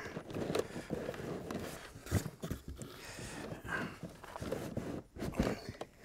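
Heavy cardboard box of baling wire being shifted against the steel wire holder of a square hay baler, making irregular knocks, scrapes and rustling.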